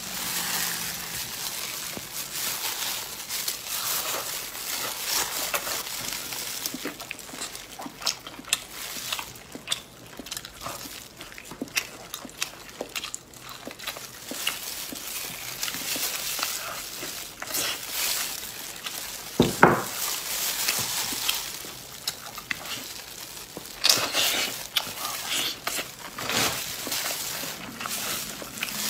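Close-up eating sounds: chewing and tearing meat from spice-crusted grilled ribs, with plastic food gloves crinkling and irregular wet clicks and crackles. A sharp crack stands out about two-thirds of the way in.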